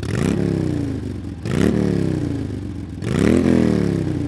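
Motorcycle engine revved three times, about a second and a half apart, each rev climbing quickly in pitch and then sinking back slowly.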